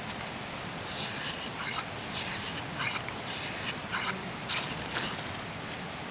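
Short, irregular scraping and rustling noises, as of objects being handled, over a steady low hiss.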